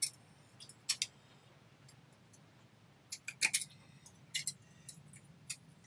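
Sharp metal clicks and clinks from a silverware spring-hinge bracelet being bent and shaped by hand. Single clicks come at the start and about a second in, then a quick cluster around the middle and a few more near the end.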